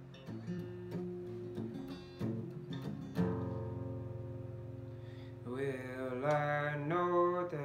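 Acoustic guitar playing chords and picked notes, with a man's voice joining about five and a half seconds in, singing a held, wavering line over the guitar.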